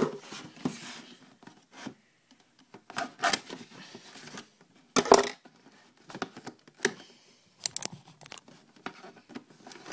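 The factory seal on a cardboard trading-card box being torn and peeled off by hand, in irregular bursts of tearing and crinkling with sharp clicks and scrapes as the box is handled.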